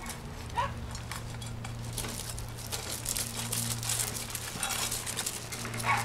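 A litter of Schipperke puppies feeding from a metal bowl on gravel: scattered clicks and scrapes of paws on the stones and the bowl, with a short puppy whimper about half a second in and another near the end. A steady low hum runs underneath.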